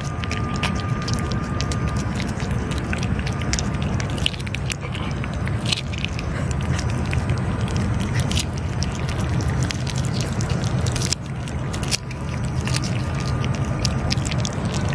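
Two cats licking and biting at a squeeze tube of lickable treat paste close to the microphone: a run of short, wet smacking clicks. A steady low rumble sits underneath throughout.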